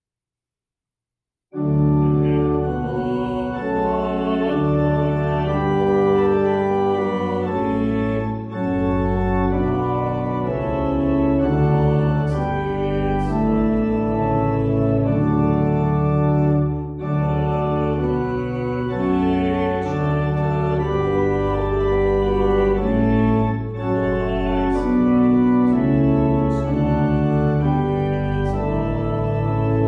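Organ music starting about a second and a half in: sustained chords over a low bass line, changing every second or two.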